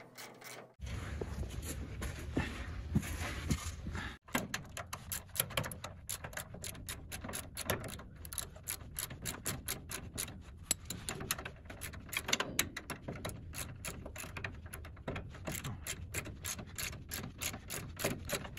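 Ratchet wrench clicking in short strokes while suspension bushing bolts are tightened. The sound cuts abruptly about a second in and again around four seconds in.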